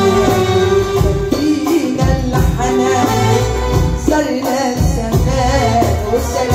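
A woman singing into a microphone over live amplified band music with a steady drum beat and jingling hand percussion.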